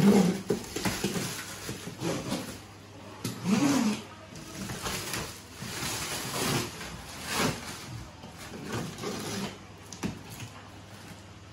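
Plastic stretch wrap on a cardboard box being slit with a utility knife and pulled away, rustling and tearing in irregular bursts.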